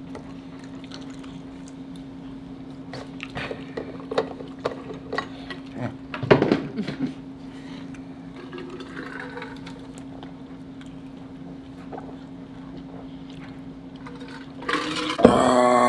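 Close-miked eating sounds: soft chewing and mouth clicks over a steady low hum, with a short louder mouth sound about six seconds in. Near the end comes drinking from a bottle, then a loud voiced sound.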